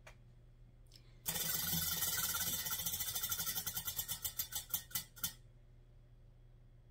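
Spinning prize wheel ratcheting: its rim pegs click rapidly against the pointer flapper, starting about a second in, then the clicks slow and space out until the wheel comes to a stop about five seconds in.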